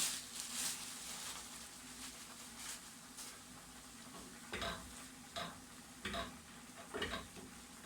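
Sauce sizzling softly in a pan while a spoon stirs it, knocking against the pan four times in the second half, about one knock a second.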